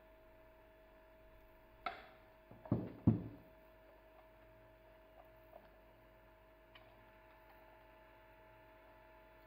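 A short click and then two heavier knocks about two to three seconds in, as a glass mixing bowl with a spoon in it is set down on the table. A faint steady hum lies underneath.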